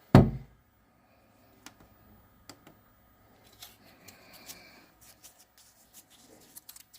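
A single loud thump just after the start, then faint scattered clicks and soft rustling of small things being handled.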